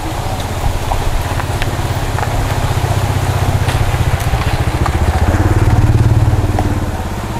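A small engine running with a steady low pulsing drone, growing louder about five to six seconds in and then easing off.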